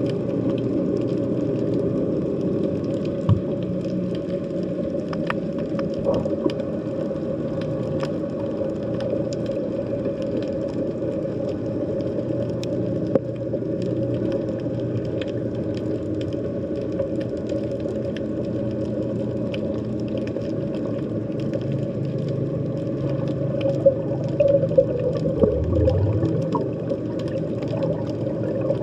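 Underwater sea ambience: a steady low, droning hum with scattered faint clicks and pops, and a louder low rumble with a few sharp knocks about 24 to 26 seconds in.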